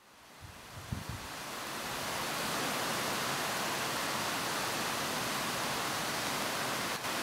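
Steady rushing outdoor noise that fades in over the first two seconds, with a soft low thump about a second in.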